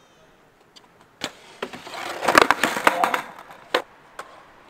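Skateboard clattering: a sharp clack about a second in, then about a second and a half of rolling and rapid board impacts, and one more sharp clack near the end.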